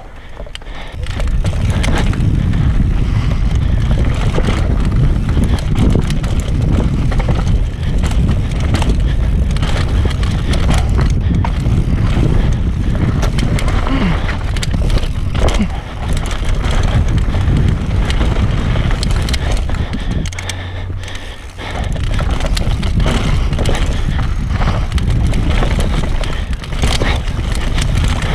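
Transition Patrol enduro mountain bike riding fast down a rocky dirt trail: a steady rush of tyres over dirt and stone with a constant rattle and knocking of the bike over the bumps. It goes briefly quieter about twenty seconds in.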